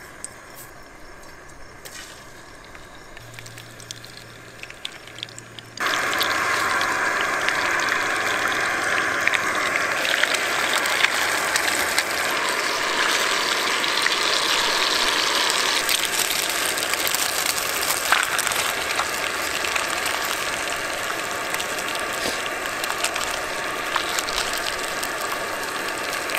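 Whole crappie frying in hot oil in a small frying pan. A loud, steady sizzle starts suddenly about six seconds in, when the fish goes into the oil, with a few light taps before it.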